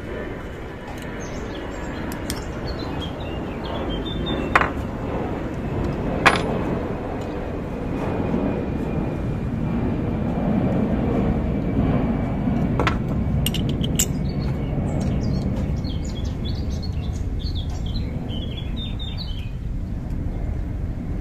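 Four sharp clicks of a CO2 airsoft Glock pistol being fired, each with only a faint puff of gas, over birds chirping and a low rumble that swells toward the middle.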